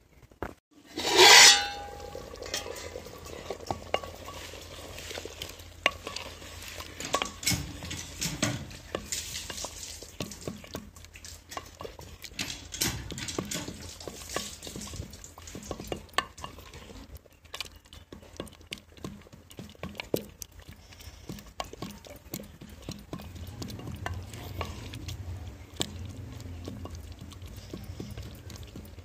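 A metal ladle on a long wooden handle stirring thick dal in a clay pot, with repeated short scrapes and knocks against the pot. About a second in comes one loud metallic clang with a brief ring, the steel plate lid coming off the pot.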